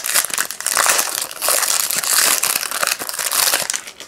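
Foil wrapper of a trading card hobby pack crinkling loudly as the pack is opened and the cards are pulled out. The crackling stops abruptly just before the end.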